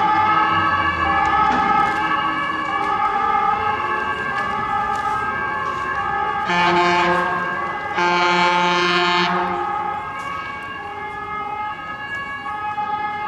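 Fire truck's two-tone siren alternating between two pitches, broken twice by loud horn blasts, a short one and then a longer one, about halfway through. The siren fades as the truck moves away.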